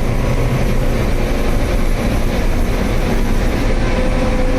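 Combine harvester running while harvesting wheat: a steady, loud mechanical drone of engine and threshing machinery, heaviest in the low end.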